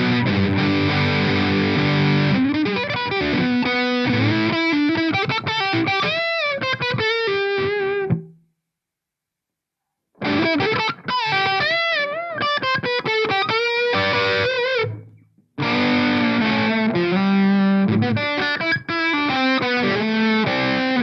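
Electric guitar with a cheap new pickup played through Amplitube 4 amp simulation with distortion: held chords at first, then picked single-note lead lines with bends and vibrato. It stops for about two seconds near the middle, then starts again.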